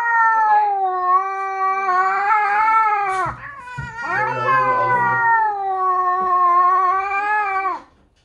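British Shorthair cat giving a long drawn-out threat yowl, breaking off about three seconds in and starting again a second later for another long yowl. It is a hostile warning at another cat that it is facing for the first time.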